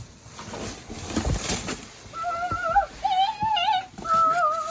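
Rustling and scraping of the microwave being worked out of its cardboard box, then a dog whining in several wavering high-pitched whimpers from about halfway in.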